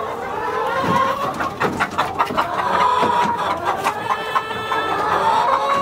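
A flock of laying hens clucking together, many overlapping calls in a steady chorus.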